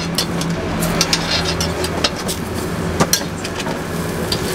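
Metal spatula clinking and scraping on a flat steel griddle as thick slices of toast are flipped: a scatter of sharp clinks over a steady low hum.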